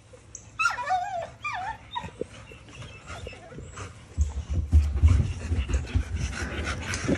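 American Bully dogs whining: two short whines that fall in pitch about a second in, then a low rumbling noise from about four seconds in.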